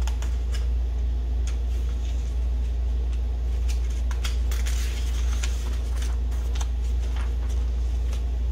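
Paper pages of a stapled lab handout being lifted and turned, rustling, with a few light handling clicks, over a steady low background rumble.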